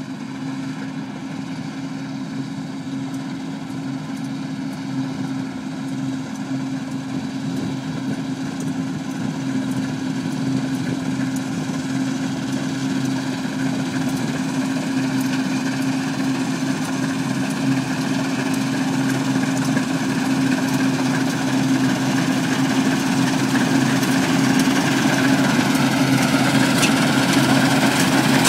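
New Holland TF78 combine harvester running steadily with a constant droning hum, growing gradually louder.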